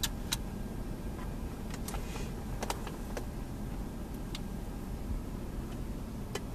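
A few faint, scattered clicks and taps from a USB cable being plugged into a car stereo head unit and a phone being handled, over a low steady hum in the car cabin.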